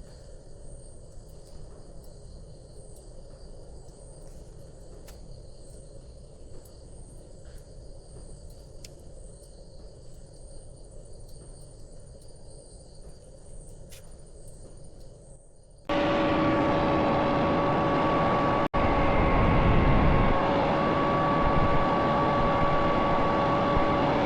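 Crickets chirping steadily in a quiet background. About 16 seconds in, a loud electric workshop machine cuts in and runs with a steady whine over a rushing noise.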